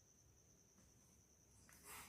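Near silence: faint room tone with a steady high-pitched whine, and a soft, brief noise near the end.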